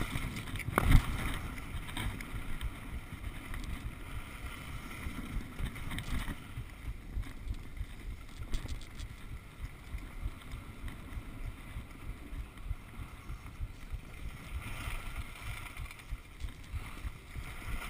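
Skis sliding over packed snow, with wind buffeting a body-mounted action camera's microphone as a low rumble, and one sharp knock about a second in.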